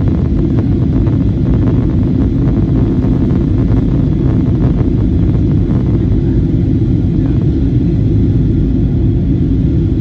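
Steady low rumble of a Boeing 737-800 heard inside the passenger cabin on descent: the CFM56-7B turbofan engines and the airflow over the fuselage, even in level throughout.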